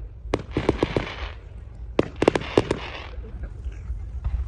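Fireworks going off: two quick clusters of sharp cracks, near the start and again about two seconds in, each trailed by a crackling hiss.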